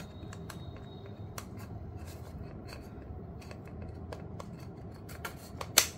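Tightly packed camera-lens packaging being worked open by hand: scattered small crinkles and clicks, with one sharp snap near the end.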